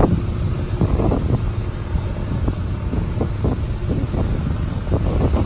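Bucket truck's engine running steadily under hydraulic load, driving the aerial boom as it extends to full reach, with a dense low rumble and irregular small knocks.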